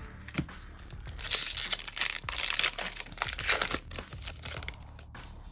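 A foil Magic: The Gathering Kaldheim set booster pack wrapper being torn open, with crinkling and tearing loudest from about a second in to nearly four seconds in, and a few sharp crackles around it.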